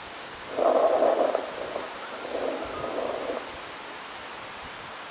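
Muffled, echoing stadium public-address sound in two short stretches, about half a second in and again around two and a half seconds in, over a steady background hiss.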